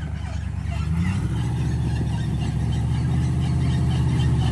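Off-road 4x4's engine revving under load as it is driven forward over a rock, rising in pitch about a second in and getting steadily louder.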